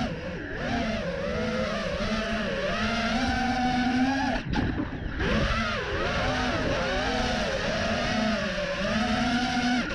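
FPV racing drone's motors and propellers whining, the pitch rising and falling with the throttle, with a short throttle cut about four and a half seconds in.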